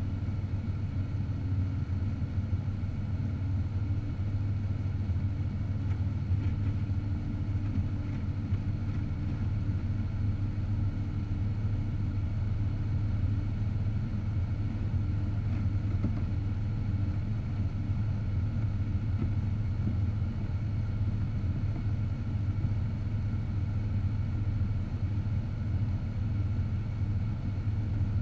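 Car driving at a steady pace, with an even, low rumble of engine and road noise.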